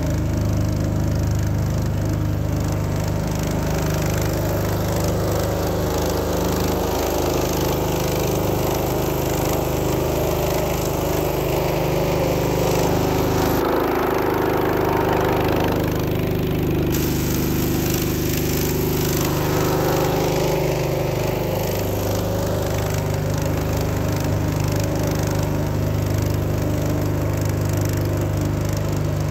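Small motorboat's engine running steadily under way, a constant low drone.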